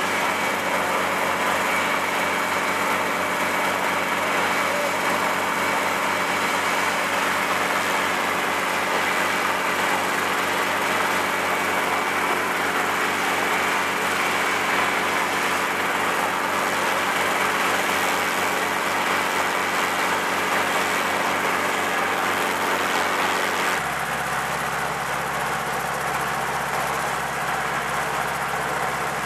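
Hughes 300 light helicopter running on the ground, its four-cylinder piston engine and turning rotor giving a steady sound. About 24 s in, the sound changes suddenly and becomes a little quieter.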